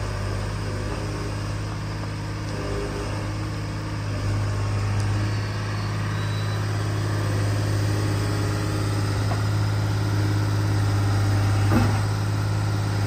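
125B hydraulic excavator's diesel engine running steadily with a low hum as the machine digs and swings its bucket. A single short knock comes near the end.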